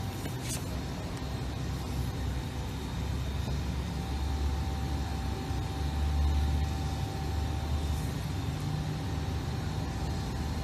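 Steady low machinery rumble with a faint constant hum, growing a little louder about four seconds in; a single light click sounds near the start.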